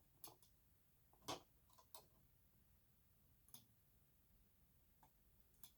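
Near silence with a handful of faint, irregular clicks and small taps from wires and parts being handled while connecting them up on a fire alarm board.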